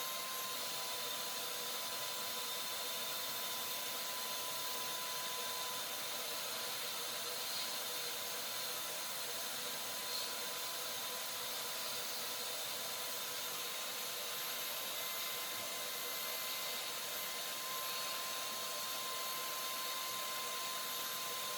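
A steady hiss with a faint whine held at one pitch, unchanging throughout.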